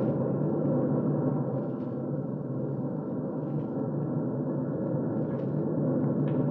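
Steady drone of a large bomber's engines, a radio-drama sound effect, dull and muffled, with faint crackles above it.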